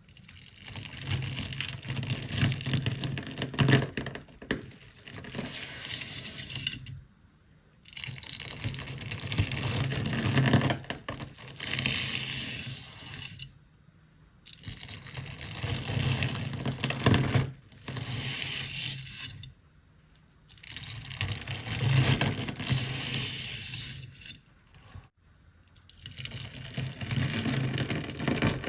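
Hands squeezing and kneading slime packed with small stones: a dense crackling crunch with clicks of stone against stone. It comes in runs of a few seconds, broken by several short silences.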